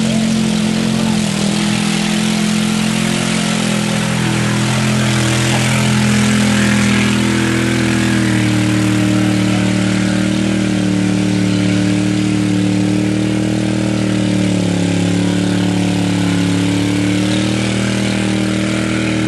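Off-road truck engine run hard at high revs through mud, its pitch wavering slowly up and down, with a broad rushing hiss over it.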